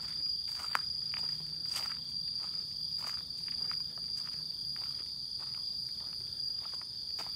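Crickets or other night insects giving one steady, unbroken high-pitched trill, with footsteps on a paved path scattered with dry leaves.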